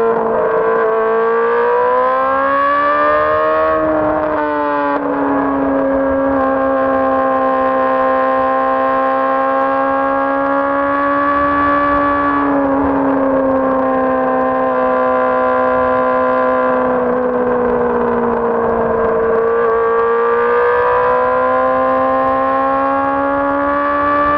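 Honda CBR600RR's inline-four engine running at high, fairly steady revs, its pitch gliding slowly up and down. There are short breaks with a shift in pitch about 5, 12 and 20 seconds in.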